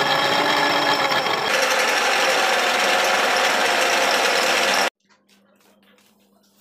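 A machine running steadily with a fast mechanical rattle, cutting off abruptly about five seconds in. Faint light clicks and a low steady hum follow.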